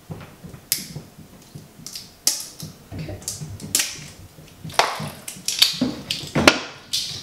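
Glue-and-baking-soda slime being mixed as saline solution is added: irregular clicks and short scrapes of the stirring utensil against its container, about one or two a second.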